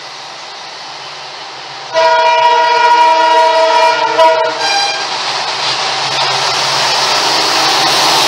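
Indian Railways express train's locomotive horn: one long blast about two seconds in, then a short second toot. The rushing noise of the approaching train follows and keeps growing louder.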